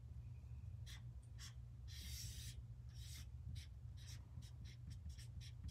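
Felt-tip marker drawing on paper: a quick string of short strokes, with one longer stroke about two seconds in, over a low steady hum.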